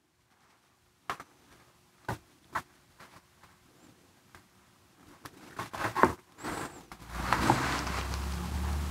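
Thick liquid plaster poured from a bucket into a plastic bucket mold: a few soft taps and plops, then, about seven seconds in, a steady rushing noise with a low rumble sets in.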